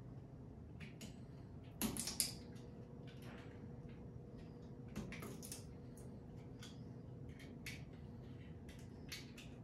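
Faint scraping and clicking of a razor knife blade working into the seam between a 3D-printed plastic part and its raft, with a couple of sharper clicks about two seconds in.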